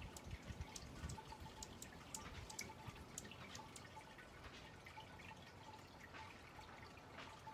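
Quiet outdoor ambience with scattered faint, short, high-pitched ticks and a faint repeated note.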